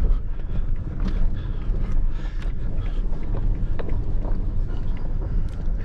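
Cabin noise of a 4WD vehicle creeping down a steep, rocky dirt road: a steady low rumble of engine and tyres, with scattered short clicks and knocks from the body as it bounces over the rocks.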